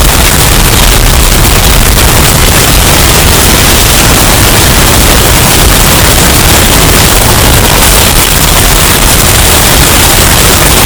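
Hurricane wind sound effect, heavily bass-boosted and distorted: a steady, very loud rush of storm noise with a heavy low rumble and no letup.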